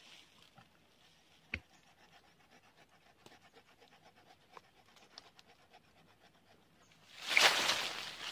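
Hand tools working at the roots and soil of a small mentaos plant: faint scattered ticks and scrapes, a sharper click about a second and a half in, then a loud rough scraping rustle near the end.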